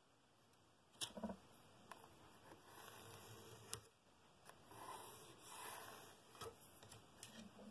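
Faint pencil scratching as a line is drawn along a wooden yardstick across a poplar board, in a few strokes, with a light knock about a second in and a few small clicks.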